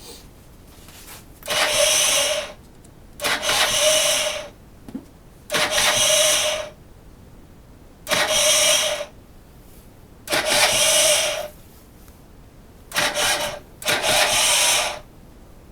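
Derbi GPR 50's 50cc two-stroke engine being cranked over seven times, each try lasting about a second with a steady mechanical whir, and it never catches: the bike won't start.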